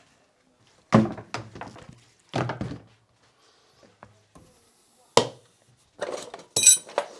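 Several separate dull knocks and thunks of wooden workpieces being handled and set down, spaced a second or more apart, then a few light metallic clinks near the end.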